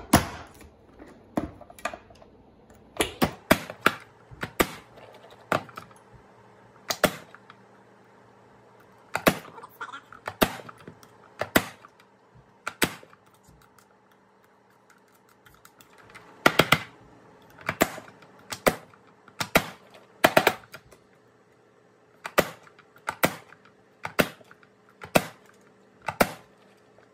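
Progressive onion chopper-dicer's plastic lid slammed down again and again, forcing tomato pieces through its blade grid: a sharp clack with each press, roughly one a second, in runs broken by two pauses of a few seconds.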